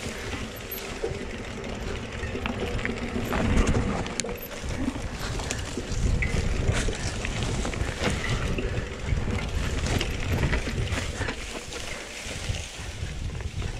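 Mountain bike rolling over a rough trail: wind buffets the microphone with a gusting rumble, and the bike's frame and parts rattle and knock over and over.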